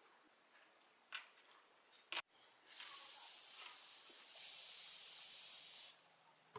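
A spray hissing steadily for about three seconds, strongest in its last part, then cutting off sharply. Two short clicks come before it, about a second apart.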